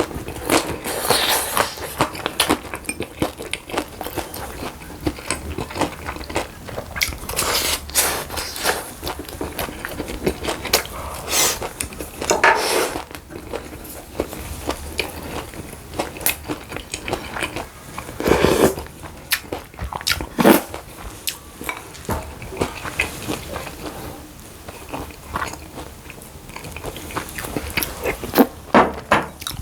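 Close-miked eating sounds: irregular crunchy bites and chewing, with light clinks of cutlery against dishes.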